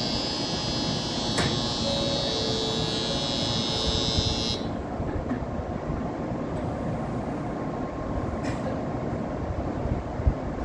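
Platform departure bell ringing for about five seconds, then cutting off, over the steady hum of an N700A Shinkansen standing at the platform ready to depart.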